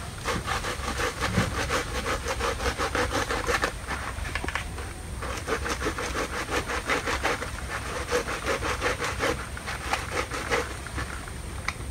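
Rapid rasping, scraping strokes, like cutting or sawing through wood, coming in bursts of one to three seconds with short pauses in between.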